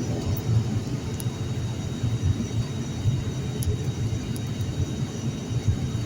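Steady low rumble inside the cabin of an ATR 72-600 twin-turboprop airliner, its engines running on the ground after landing.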